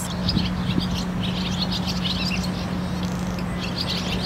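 Small birds chirping, many short high chirps in quick runs, over a steady low hum.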